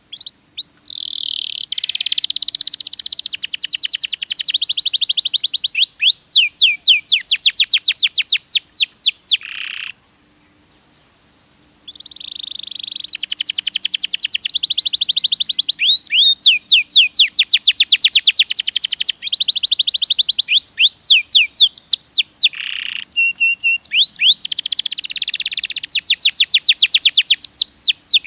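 Domestic canary singing long phrases of fast, rapidly repeated high sweeping notes in rolling trills. The song breaks off for about two seconds midway, then resumes with more trills.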